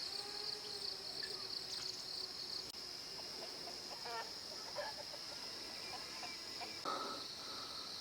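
A steady, high-pitched shrill chorus of insects, with scattered short bird chirps and calls beneath it.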